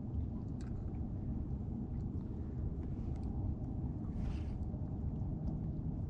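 Steady low rumble of wind buffeting the camera microphone, with a few faint clicks.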